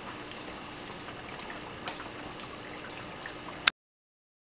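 Aquarium water trickling and splashing steadily, with scattered small droplet ticks. A sharp click comes a little over three and a half seconds in, and the sound cuts off to silence.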